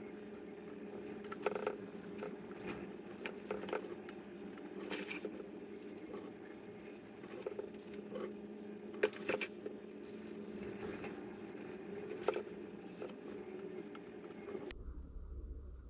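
Scattered light taps and clicks over a steady low hum. The sound cuts abruptly near the end to a different, lower hum.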